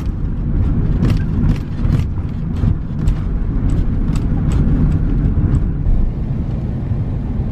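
Road vehicle running with a steady low rumble, with sharp clicks or rattles about twice a second through the middle.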